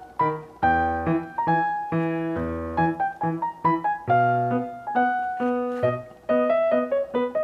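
Background piano music: a light melody of quick, separate notes over a lower bass line, playing without a break.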